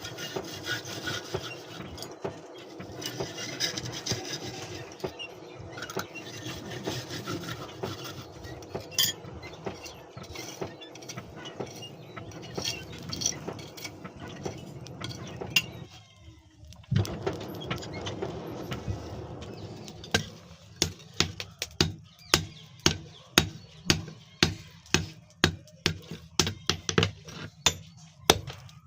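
Steady hand rasping on the dawali's steel blade, typical of filing or sharpening the edge. About two-thirds of the way in it gives way to a run of regular sharp knocks, about two a second.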